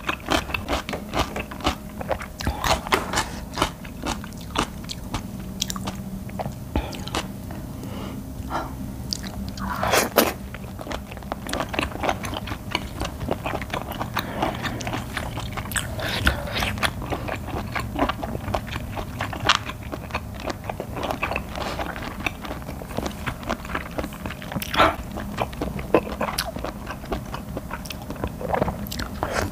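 Close-miked chewing of a whole octopus tentacle: a long run of irregular mouth clicks and bites, one louder bite about ten seconds in. The meat is tough, needing long chewing.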